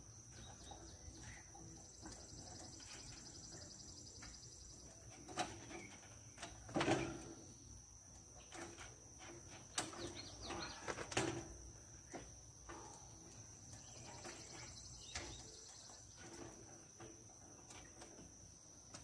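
Scattered knocks and clanks of a man climbing a ladder laid on a metal roof, the loudest about a third of the way in and again near the middle, over a steady high insect buzz.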